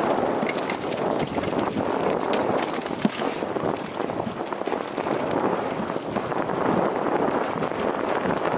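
Mountain bike descending fast on a dirt forest trail, heard from a helmet-mounted camera: steady tyre noise on the dirt with constant rattling and many short clicks and knocks from the bike over roots and bumps.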